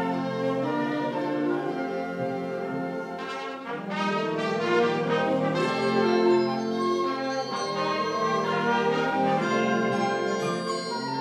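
Concert wind band playing, brass and woodwinds in held chords, dipping a little about three seconds in and then swelling fuller and louder.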